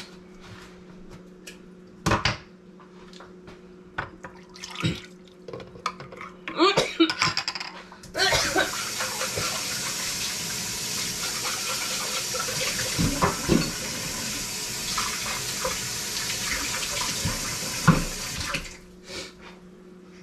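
A few clinks and clatter of kitchenware as the soup is served, then a kitchen tap running in a steady stream for about ten seconds before it is shut off. A faint steady hum sits underneath.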